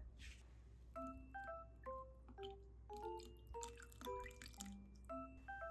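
Soft background music: a gentle melody of short, ringing notes at changing pitches. A few faint taps and rustles sit over it, one click at the very start.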